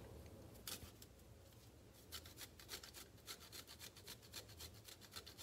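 Ginger root, not very fresh, grated on a handheld stainless-steel rasp grater: faint scraping, one stroke just before a second in, then a quick rhythmic run of strokes from about two seconds in, about four a second.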